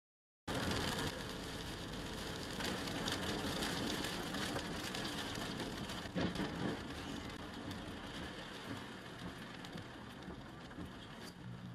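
Tyres hissing on a rain-soaked highway and rain on the car, heard from inside a moving car, a steady noise that starts abruptly about half a second in and slowly fades as the car slows. A brief louder moment comes about six seconds in.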